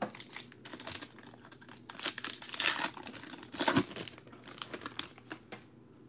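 Foil wrapper of a football trading card pack crinkling as it is picked up and torn open: a run of irregular crackles, loudest around the middle, that stops shortly before the end.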